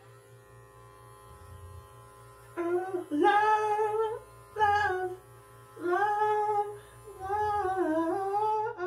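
A woman's voice singing a wordless, wavering melody in five phrases, starting about two and a half seconds in. Underneath is the faint steady hum of a small electric pet trimmer working on a poodle's muzzle.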